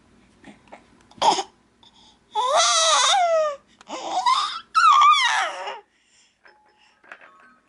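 A young child's high-pitched squealing: a short yelp about a second in, then three wavering shrieks, the first and last each about a second long.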